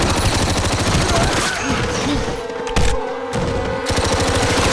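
Rapid automatic gunfire: many shots in quick succession. It breaks off briefly about three seconds in, then resumes.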